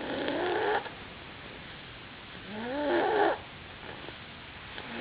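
Snoring: three snores about two and a half seconds apart, each under a second long, with a squeaky tone that bends up and down in pitch.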